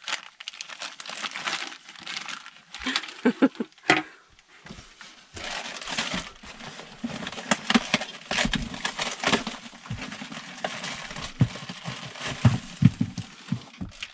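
Plastic parts bags crinkling and rustling as they are handled and dug out of a cardboard shipping box, with scattered dull knocks in the second half.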